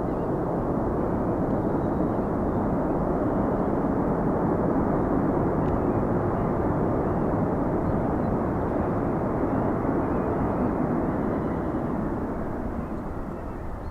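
Heavy jet airliner's engines at takeoff thrust during its departure, a steady rushing noise that begins to fade near the end as the aircraft moves away.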